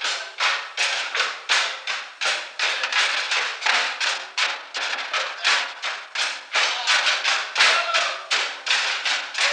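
Drumsticks beating a set of tom-tom drums in a steady, even rhythm of about three strokes a second.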